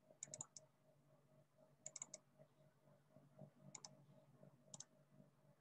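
Faint clicking at a computer, near silence otherwise: a quick run of four clicks near the start, another run of four about two seconds in, then two quick pairs near the end, over a faint steady hum.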